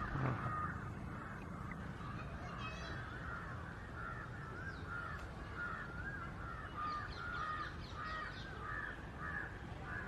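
Rose-ringed parakeet chicks begging at the nest: a continuous run of harsh, rapidly repeated squawking calls as the parent feeds them.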